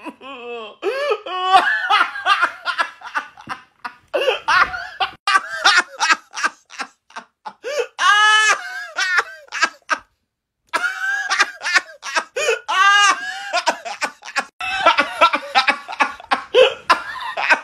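A man laughing loudly and hard in fast repeated bursts, broken by drawn-out wails that rise and fall in pitch. The laughter breaks off for under a second about ten seconds in.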